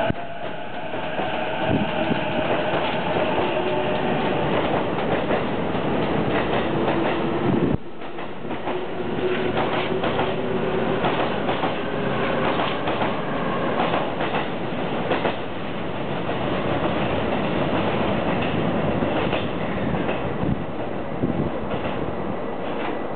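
JR East E233-series electric commuter train moving, with a steady whine from its traction motors and inverter. About eight seconds in the sound changes abruptly to the train's wheels clattering over rail joints and the points in an uneven run of clicks.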